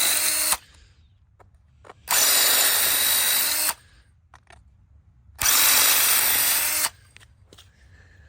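Hand-held power drill drilling out the rivets of an aluminum TV antenna, in short runs: one ends about half a second in, then two more runs of about a second and a half each follow, with faint clicks in the pauses between.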